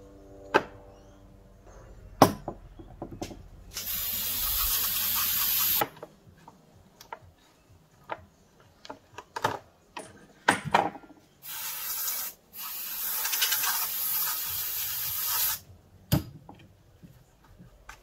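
Aerosol cleaner sprayed from a can onto the gears of an RC truck's center differential in a plastic tub. It hisses once for about two seconds about four seconds in, then twice more, briefly and then for about three seconds, from about eleven seconds. Sharp clicks and clatter of small metal parts against the plastic come between the sprays.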